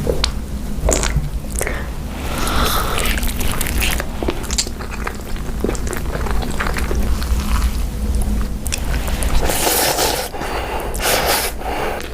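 A person biting into and chewing crunchy food close to the microphone: irregular crisp crunches and clicks, with a run of louder crunching near the end.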